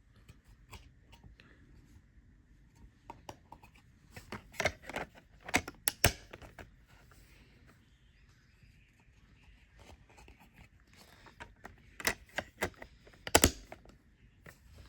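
DVD box-set packaging being handled: plastic cases and wrapping clicking and crinkling in scattered snaps, with two louder clusters, one around the middle and one near the end.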